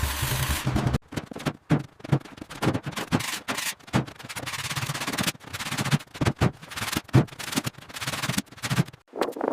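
Irregular scraping and rubbing with scattered knocks: a dense burst for about the first second, then a broken series of short scrapes and taps.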